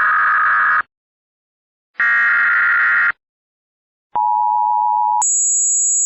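Emergency Alert System SAME header data bursts: two harsh, warbling digital squawks about a second long, a second apart. Then the two-tone EAS attention signal sounds for about a second and switches suddenly to a much higher steady tone, as the next alert begins.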